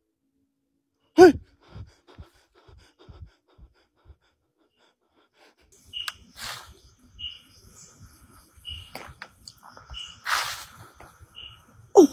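A single short voice-like cry or gasp, falling in pitch, then faint knocks. Later come soft rustling and short high chirps about every second and a half.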